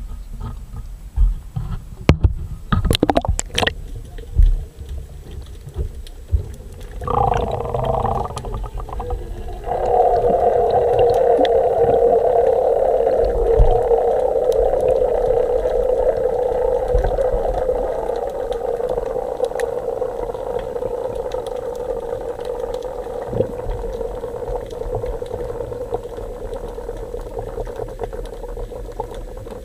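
Waterproof action camera lowered into seawater on a line. First come knocks and splashes as it is handled and goes in, then muffled underwater noise with a steady hum. The hum begins about seven seconds in and grows louder about ten seconds in.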